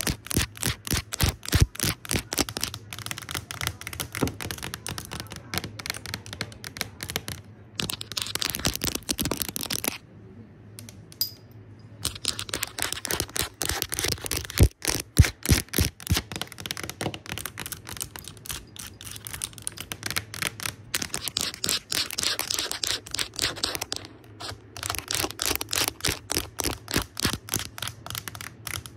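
Fast, aggressive fingertip and nail tapping on a camera's screen: dense runs of quick taps, with a pause of about two seconds some ten seconds in.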